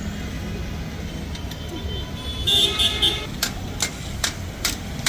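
Steady traffic rumble with a short horn toot about halfway through, followed by four sharp knocks in quick succession.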